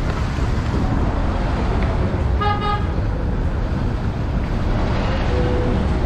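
Steady road-traffic noise with one short vehicle horn toot about two and a half seconds in.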